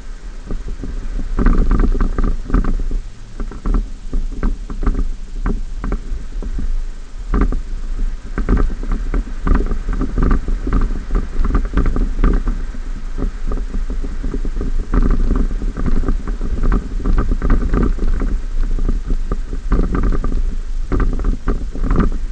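A 2014 Ford F-150 pickup driving over bumpy sand, heard from a camera mounted outside on the truck: a deep, steady rumble with frequent irregular knocks and rattles as the truck jolts over the ruts.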